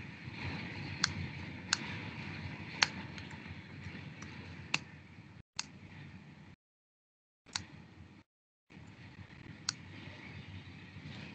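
Scattered single clicks from working a computer, roughly one a second and irregularly spaced, over faint steady room noise. The audio cuts out completely twice near the middle.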